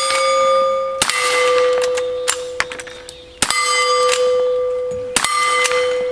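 Gunshots hitting steel targets: three loud hits about two seconds apart, each leaving the steel plate ringing in a steady, fading tone.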